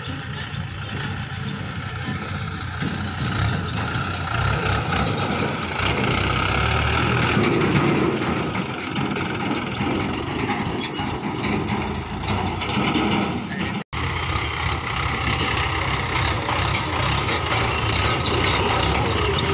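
Mahindra 575 DI tractor's four-cylinder diesel engine running steadily while pulling a trailer, with a brief cut-out about two-thirds of the way through.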